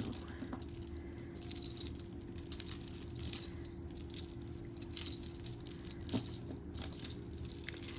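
Costume jewelry jangling and clinking as it is rummaged through by hand: metal chains and beads knocking against each other in a quick, irregular run of small clicks.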